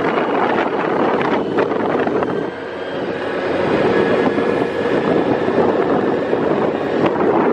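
Wind rushing over the microphone on a moving small motorbike, with the engine's running noise underneath; the rush dips briefly about two and a half seconds in.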